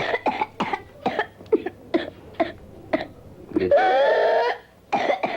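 A child with whooping cough (pertussis) in a coughing fit: a rapid run of short coughs, then one long, rising, pitched whoop as the child draws breath about two thirds of the way in, then more coughs. The whoop on the in-breath is the classic sign of pertussis, with the child struggling to cough through narrowed airways.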